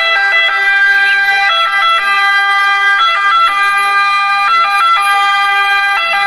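Ambulance siren sounding in two alternating tones, stepping back and forth between a higher and a lower pitch.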